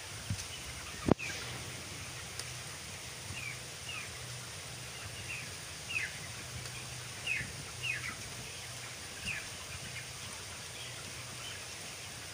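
A crowd of broiler chickens peeping, with short falling calls every second or so over the steady hum of the barn's ventilation fans. A single sharp knock comes about a second in.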